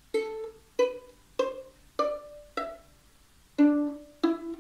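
Violin played pizzicato, single notes plucked one at a time, each ringing briefly and dying away: a rising run of four notes, then after a short pause about three and a half seconds in, a lower run starts and rises again. The notes are natural notes, with no sharps or flats.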